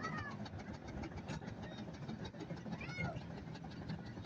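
Outdoor showground background: a steady low rumble of machinery and crowd, with two brief high-pitched calls that rise and fall, one at the start and one about three seconds in.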